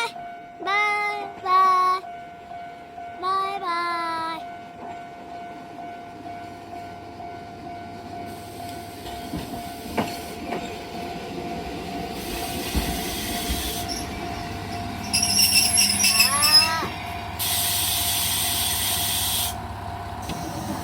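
Train pulling into a station: a rumble builds as it approaches, brakes squeal shrilly about two thirds of the way through, and it ends in a long steady hiss of air as it comes to a stop.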